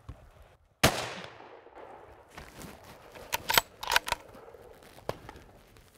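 A single loud rifle shot about a second in, its echo dying away over the next second and a half. A few sharp clicks follow a couple of seconds later.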